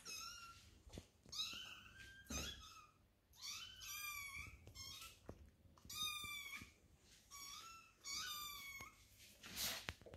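A litter of Maine Coon kittens mewing, a run of short, high, thin calls one after another and sometimes overlapping. A brief rush of noise comes near the end.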